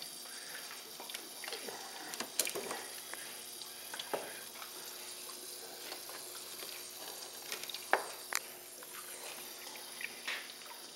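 HHO electrolysis cell fizzing and hissing steadily, the hiss coming from a small gasket leak on the cell. A few sharp clicks and knocks sound over it, the loudest about eight seconds in.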